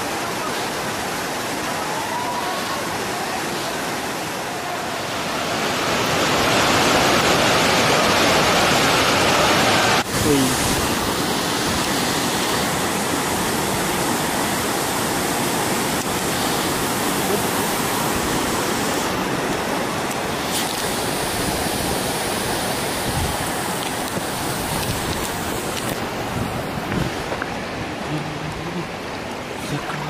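Waterfall's rushing water, a steady dense roar. It swells louder for a few seconds, changes abruptly about ten seconds in, then carries on steadily.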